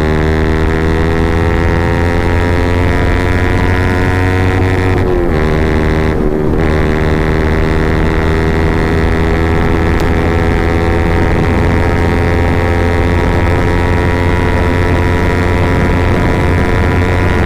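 Yamaha MT-15's 155 cc single-cylinder engine, fitted with an Akrapovic full-system exhaust, running loud under way. Its pitch climbs slowly for the first few seconds, dips briefly twice about five and six seconds in, and then holds steady.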